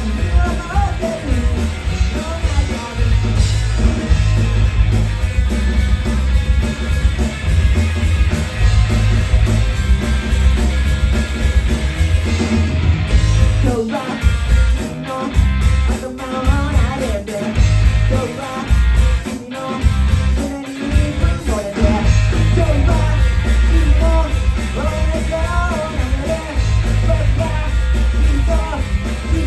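Rock band playing: electric guitar, bass and drums at full volume. The band stops short several times in the middle section and comes back in each time.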